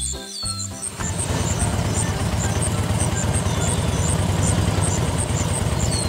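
Small engine of a miniature walk-behind tractor model running steadily with a fast, even pulse; it starts about a second in, cutting in over background music.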